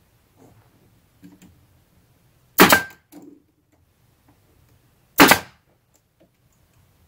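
Pneumatic stapler on an air hose firing twice into a wooden siding board, two sharp shots about two and a half seconds apart, with a few faint knocks before the first.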